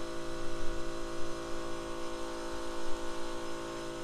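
Steady machine hum made of several held tones, with a few brief soft knocks.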